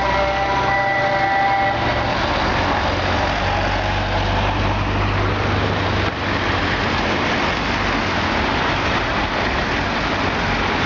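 Muezzin's call to prayer with a held sung note that ends about two seconds in, followed by a loud steady rush of noise with a low rumble.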